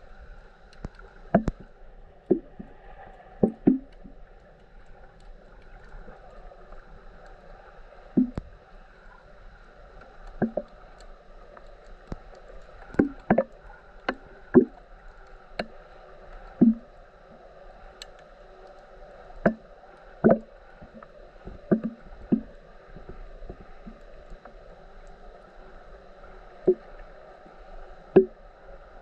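Water slapping and knocking against a kayak's hull while it is paddled among rocks: irregular sharp, hollow knocks about every second or two over a steady wash of water, with a couple of quieter stretches.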